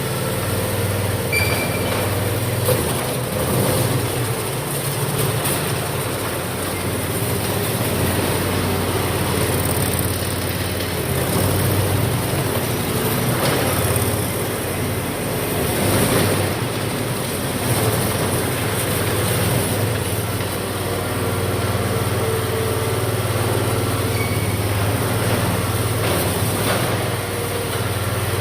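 Engine of a mini stand-on track loader running steadily at an even speed.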